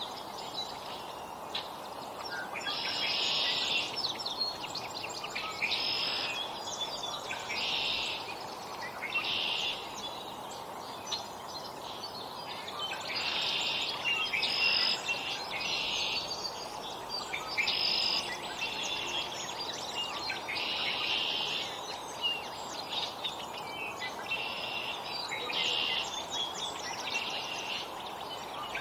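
Small songbirds chirping, with short clusters of high chirps every second or two over a steady outdoor background hiss.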